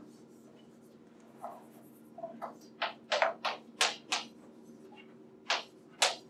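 Chalk writing on a blackboard: short, sharp chalk strokes and taps, a few faint ones at first, then a quick run of about five around the middle and two more near the end, over a steady low hum.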